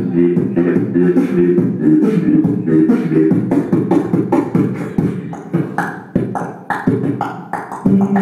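Beatboxing into a cupped handheld microphone: quick mouth-made drum hits over a hummed, pitched bass line. About five seconds in the hummed notes drop away, leaving sparser, quieter hits, and they come back strongly near the end.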